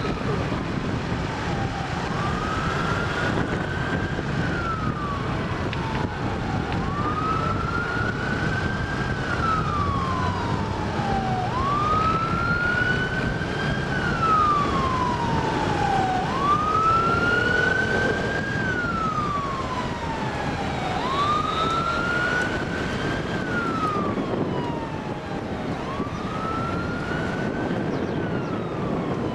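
A siren wailing, rising and falling slowly about once every five seconds, over steady road and wind noise.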